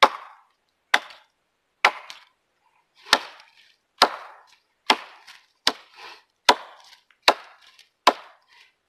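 Husqvarna multi-purpose axe chopping into the trunk of a standing tree: about ten sharp strikes, roughly one a second, each with a short splintering tail. The blows are cutting the felling notch on the side the tree is meant to fall toward.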